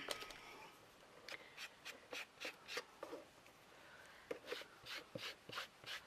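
Foam ink-blending tool dabbing and scuffing brown ink onto the edges of a painted bird house: short, soft strokes about three a second, in two runs with a brief pause in the middle.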